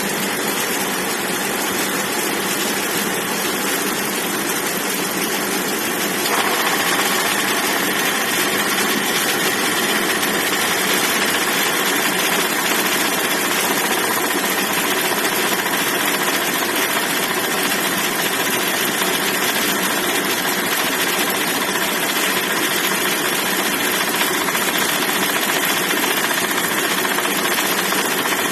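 2014 Toyota Tundra 4.6-litre V8 idling. About six seconds in, the air conditioning is switched on: the sound steps up louder and a knocking joins the idle, which the owner takes for the AC compressor.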